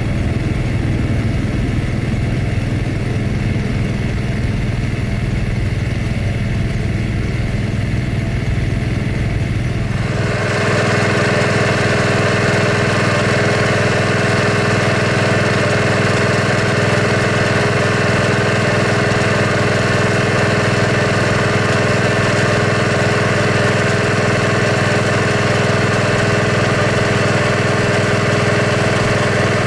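Boeing 767-300 freighter's twin turbofan jet engines running steadily at low power: a constant drone with steady whining tones. About ten seconds in the sound cuts abruptly to a brighter, louder whine with higher tones, from a second 767 freighter's engines.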